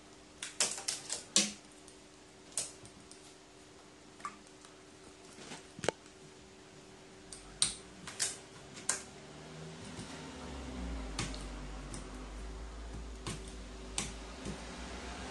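A crow's bill pecking at an apple and its claws on a metal tabletop: scattered sharp clicks and taps, first a quick cluster, then single taps every second or two. A low hum rises in the background about two-thirds of the way through.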